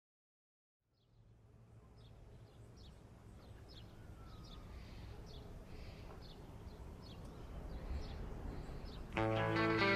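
Quiet ambience fading in about a second in: birds chirping with a low rumble and faint hiss that slowly swell. Near the end, music with guitar comes in.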